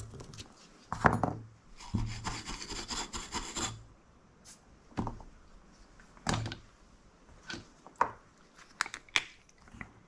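Hands handling small tools and drone parts on a workbench mat: scattered light clicks and knocks, with a rough rubbing rasp lasting under two seconds about two seconds in.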